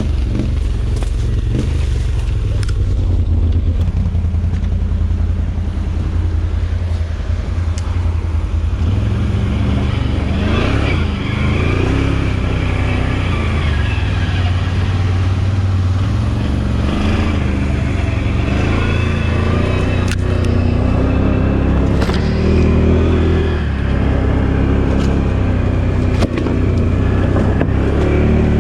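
Can-Am Outlander 1000 XMR ATV's V-twin engine running under throttle as it pulls the quad over rough ground off-road. The engine note rises and falls, with a few sharp knocks over the run.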